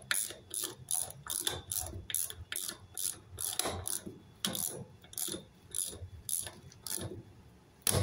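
Hand ratchet wrench clicking in quick, even strokes, about three a second, as it tightens a large fastener at the base of a timber post.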